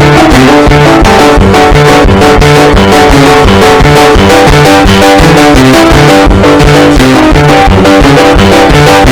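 Loud instrumental music led by guitar over a bass line and a steady beat.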